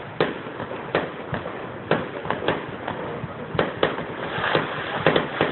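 Fireworks going off: about a dozen sharp bangs and pops at uneven intervals, some coming in quick pairs.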